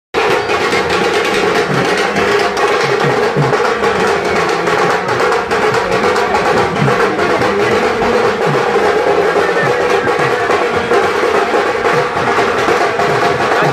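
Loud drum-led music: many rapid, closely spaced drum strokes over a steady, dense din. It cuts in after a brief dropout at the very start.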